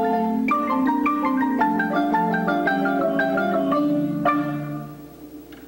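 Guatemalan concert marimba played by several players with mallets, a quick run of notes ending on a final struck chord about four seconds in that rings and fades out.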